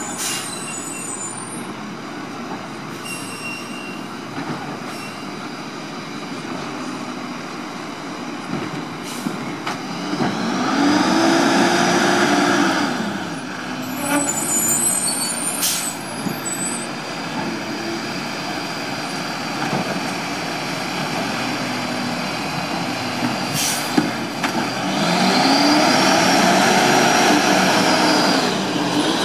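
Lodal side-loader garbage truck's diesel engine running steadily, then revving up and back down twice, each time for about three seconds, the way an automated side-loader's engine speeds up to drive the hydraulic arm as it lifts and empties a cart. A few short sharp sounds are scattered between the revs.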